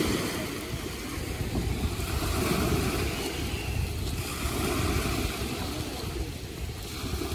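Outdoor beach ambience: wind rumbling on the microphone in uneven gusts over the steady wash of surf.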